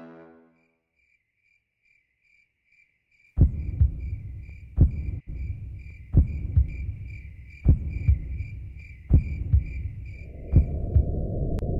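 Crickets chirping in a steady pulsing trill. About three seconds in, a slow heartbeat starts: deep double thumps about every second and a half. Near the end a low rushing noise swells in under the beats.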